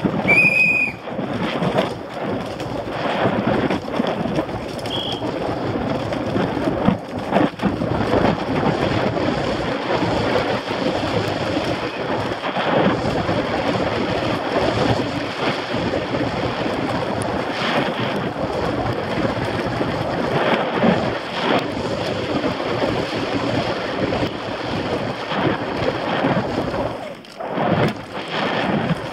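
Downhill mountain bike ridden fast over a dirt forest track, recorded from a helmet camera: steady wind rush on the microphone over the continuous rattle and knocks of the bike and tyres on roots and dirt. There is a brief high whistle-like tone in the first second, and a short lull a couple of seconds before the end.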